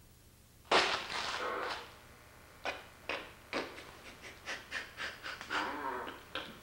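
A person's breathy gasps: one long gasp about a second in, then an irregular run of short gasping breaths.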